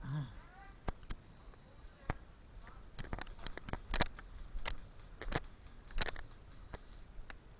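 Airsoft guns firing: scattered single shots and short quick runs of sharp cracks, with a brief voice at the very start.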